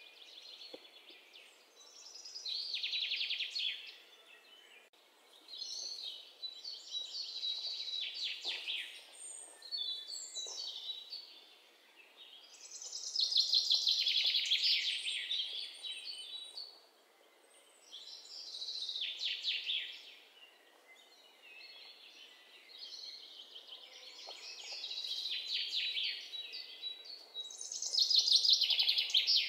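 Birds chirping in repeated high-pitched phrases of a second or two, each a rapid run of short notes, with brief pauses between.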